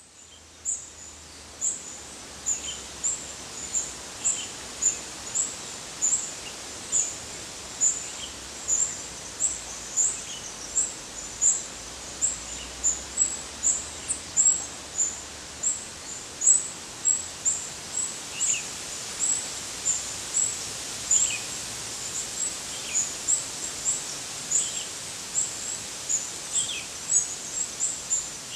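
High, thin chirps repeated about twice a second, with fainter, lower chirps here and there, over a steady outdoor hiss.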